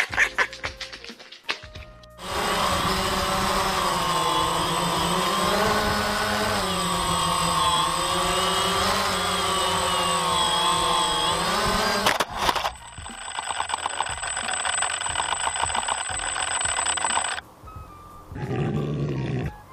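Quadcopter drone motors whining steadily, their pitch wavering up and down together. A knock comes about twelve seconds in, after which the sound changes to a fast, rattling buzz that cuts off abruptly.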